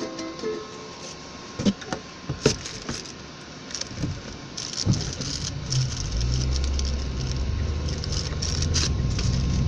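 A few sharp clicks and knocks, then a car's engine and road noise heard from inside the cabin, the low rumble setting in about five seconds in and growing as the car pulls away from a stop.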